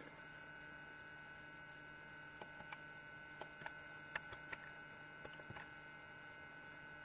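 Faint, steady electrical hum with a scattered handful of light clicks and taps through the middle, close to silence.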